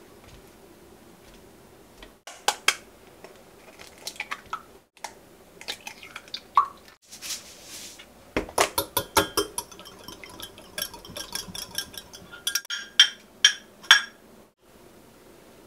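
Kitchen prep sounds: scattered clinks and taps of utensils against glass and dishes, with a short hiss about halfway and runs of quick clicking strokes in the second half.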